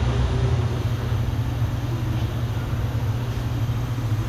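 Steady low rumble with a hiss above it, continuous and unchanging, with no distinct knocks or events.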